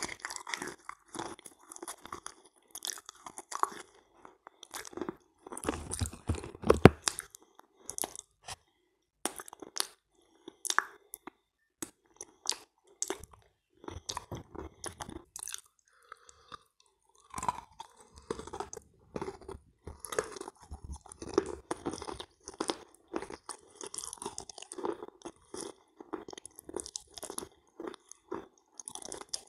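Close-miked wet chewing of pressed clay 'halva' coated in kaolin cream: soft crunching with sticky mouth clicks, pausing for a second or so about halfway through.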